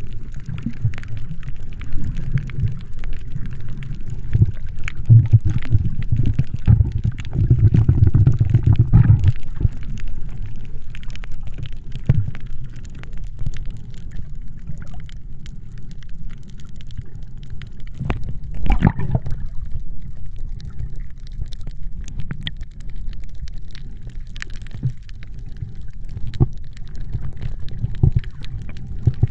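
Muffled underwater sound picked up by a camera submerged over a coral reef: a low, steady water noise that swells for a few seconds, with scattered faint clicks and crackles and one sharper click a little past the middle.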